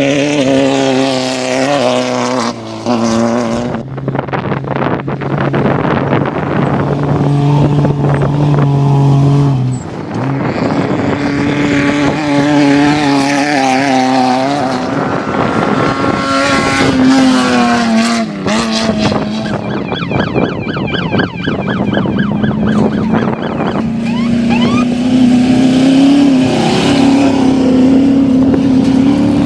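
Off-road race vehicle engines running hard and passing one after another, revving up and down, with a falling pitch as one goes by about 18 seconds in.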